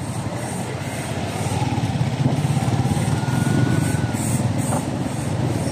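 Motorcycle engine running as the bike rides along a rough street, with a pulsing low rumble that grows louder around the middle and then eases off.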